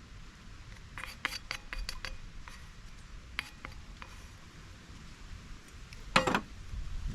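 Light clinks and taps of metal or glass tableware being handled, in a quick cluster about a second in and a few more later, then a louder ringing clank about six seconds in.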